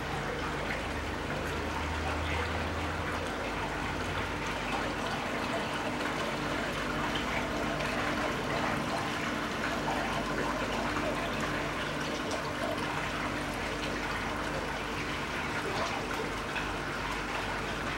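Steady trickling, running water, with a low steady hum underneath.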